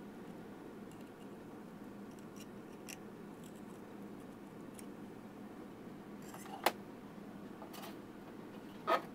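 Faint small clicks and scraping of a metal pick working a CR1220 coin-cell battery out of its holder on a circuit board. Two sharper clicks come about two-thirds of the way in and again near the end, over a steady low hum.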